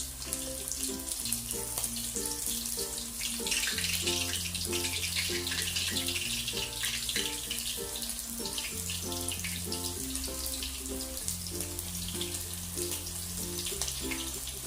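Coated prawns frying in hot oil: a steady sizzle and crackle that grows louder about three and a half seconds in. Background music with a steady bass line plays throughout.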